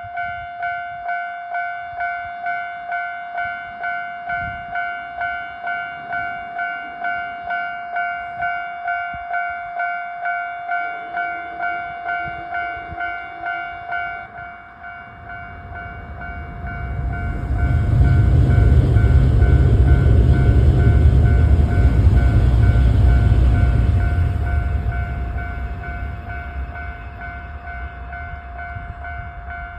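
Japanese level-crossing warning bell ringing in a steady, rapid repeating ding. About halfway through a train runs past through the crossing with a loud rumble that holds for several seconds and then fades, while the bell keeps ringing.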